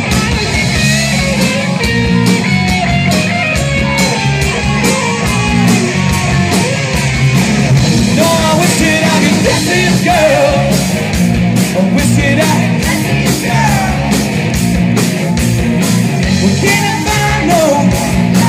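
Live rock band playing loud, with electric guitars, a steady drum beat and a voice singing.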